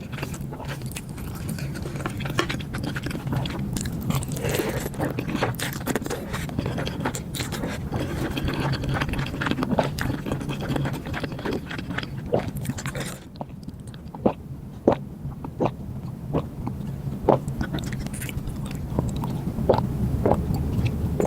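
Close-miked eating sounds: chewing and mouth sounds with scraping. About two-thirds of the way through the sound turns quieter and sparser, with sharp separate clicks.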